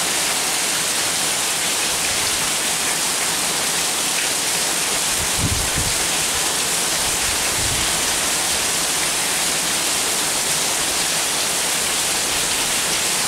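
Heavy tropical-storm rain pouring down steadily on trees and a wooden fence, an even, unbroken hiss of downpour. A brief low rumble comes about five seconds in, and a fainter one a couple of seconds later.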